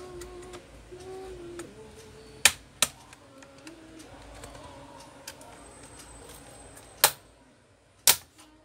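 Plastic clips of an ASUS C202S Chromebook's keyboard top case snapping loose as the case is pried open: sharp clicks, two close together about two and a half seconds in and two more about seven and eight seconds in, with light tapping between.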